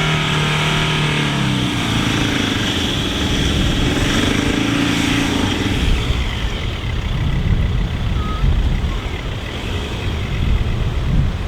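Four-wheel-drive vehicle driving on beach sand, its engine holding a steady note under load that steps up in pitch. About halfway through, the engine note gives way to a broad rush of wind.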